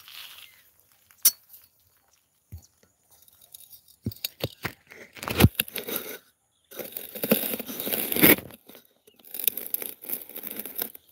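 Irregular close rustling and crackling with a few sharp clicks, the noise of movement right at the microphone, in dense bursts from about four seconds in with a short break halfway through.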